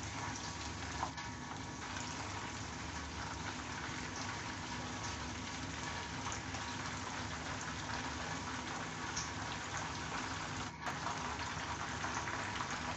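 Hot oil sizzling and bubbling steadily around flour-coated chicken drumsticks deep-frying in a pan.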